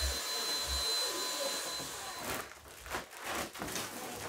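Cordless handheld vacuum with a crevice nozzle running with a steady high whine, switched off about two seconds in. Then come scattered knocks and rustling as a plexiglass sheet is handled.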